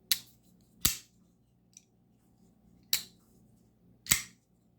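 Kizer Mini Roach flipper pocket knife being flipped: the blade snapping open and shut, four sharp clicks.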